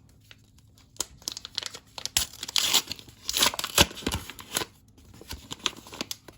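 A trading-card pack wrapper being torn open and crinkled, the loudest rustling and tearing from about two seconds in to just before five seconds, with light handling clicks before and after.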